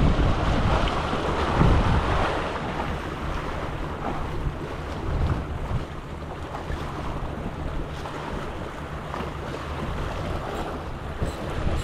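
Small waves washing and splashing against shoreline rocks, with wind rumbling on the microphone; louder over the first two seconds or so, then steady.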